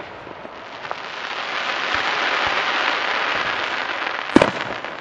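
Fireworks display: a dense crackling hiss from glittering crackle stars builds about a second in and holds steady, and a loud shell burst bangs near the end.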